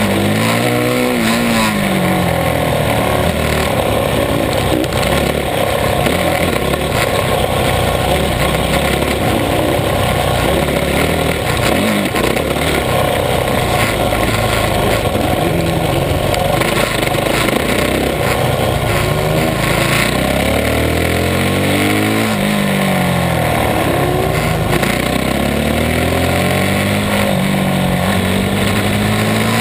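Supermoto motorcycle engine heard from on board while racing: it revs up through the gears in repeated rising sweeps, then drops away on the overrun when braking into corners.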